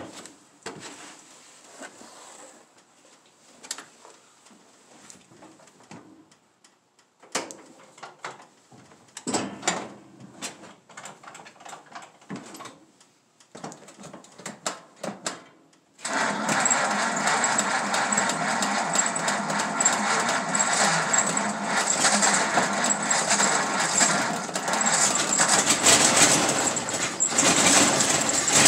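A few scattered clicks and short rattling bursts, then about halfway through the 1934 Ford flathead V8 suddenly catches and keeps running, loud and steady with a fast even beat. It is a cold start after thirty years standing, with no fuel priming or choke.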